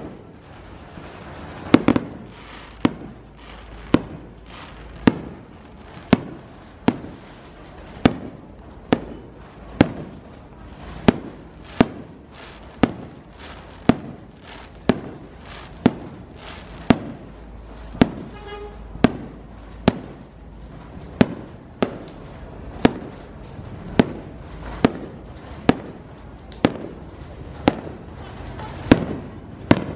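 Aerial firework shells bursting overhead in a steady barrage, one sharp bang about every second, each dying away quickly.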